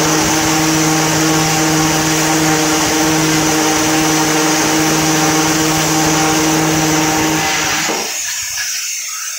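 Angle grinder with a core bit boring a hole through wet granite: a loud, steady motor whine with the grinding of the bit in the stone. Near the end the grinder is switched off and winds down.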